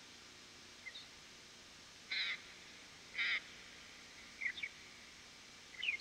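Loggerhead shrike calling: two harsh calls about a second apart, with a few short high chips and quick slurred notes around them.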